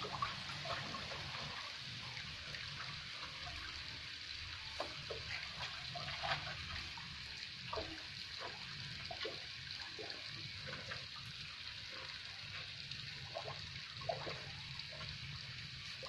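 Water in a basin at a cattle trough sloshing and dripping in small, irregular splashes over a faint steady background hiss.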